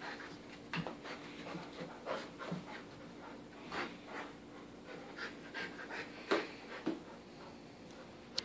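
A 14-month-old English Cream golden retriever panting in short, irregular breaths while it wrestles a plush toy, with one sharper puff a little past six seconds.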